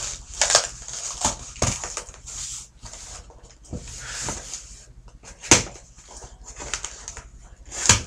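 A cardboard shipping box and its paper packing being opened and handled: a run of short crinkling, rustling and scraping noises, with two sharper knocks about five and a half seconds in and near the end.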